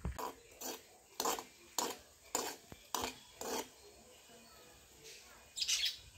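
A metal ladle scraping and knocking against an aluminium cooking pan as the contents are stirred: about seven strokes roughly every half second, then a pause and a longer scrape near the end.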